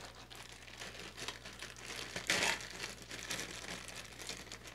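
Clear plastic bag crinkling and rustling as hands pull an action figure out of it, with a louder crinkle about halfway through.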